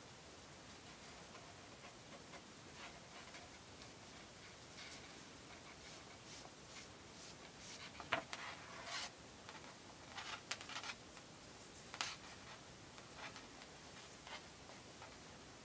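Faint rustling and soft ticks of cords being handled and pulled through a knot by hand, over a steady hiss. The handling sounds are scattered, the louder ticks falling about halfway through and again a few seconds later.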